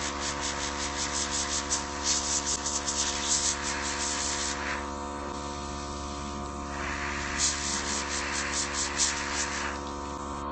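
Airbrush compressor running with a steady hum while the airbrush sprays nail paint in a fast pulsing hiss. The spray stops for about two seconds in the middle, then starts again.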